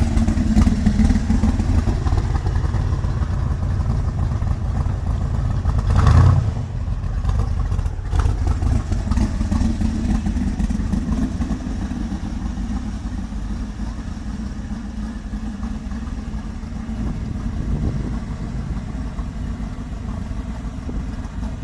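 Shelby Cobra's V8 engine rumbling loudly as the car passes. It is loudest about six seconds in, then slowly fades away.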